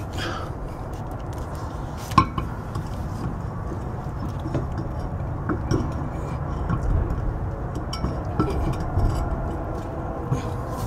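Steel car wheel being fitted onto the hub studs: one sharp metallic clank about two seconds in, then light scattered metallic clinks and taps as the wheel is worked into place, over a low steady background rumble.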